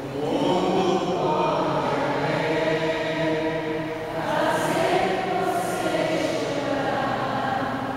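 A group of voices singing a slow church hymn together in long, held notes, with a short breath pause about halfway through.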